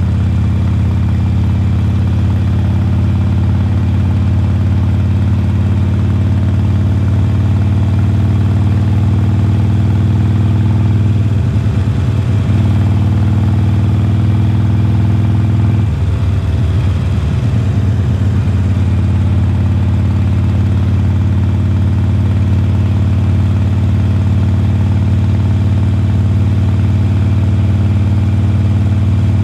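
A 2020 Harley-Davidson Forty-Eight's air-cooled 1200 cc V-twin running steadily under way through Khrome Werks slip-on mufflers, heard from the rider's seat. The steady engine note breaks up briefly twice, about twelve and sixteen seconds in.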